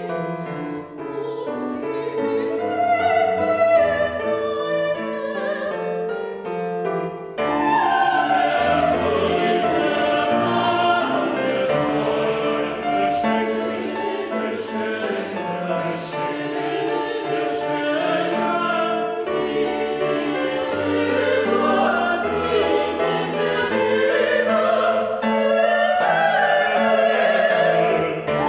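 Mixed-voice chamber choir of sopranos, altos, tenors and basses singing sustained chords in German. The sound grows fuller and louder about seven seconds in, with the hiss of sung consonants coming through.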